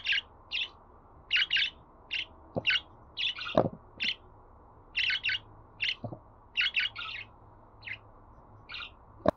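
Budgerigars chirping: a run of short, quick chirps in irregular bursts, with a few sharp clicks mixed in, the loudest about three and a half seconds in.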